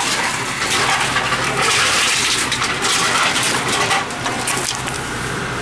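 Tomra T-53 reverse vending machine running while it prints a deposit receipt: a steady, noisy whir that eases off about four seconds in.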